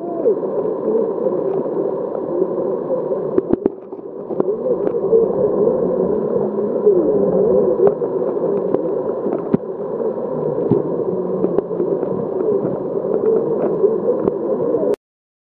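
Muffled underwater wash and bubbling of surging sea water, heard through a submerged camera, with scattered small clicks. It cuts off abruptly just before the end.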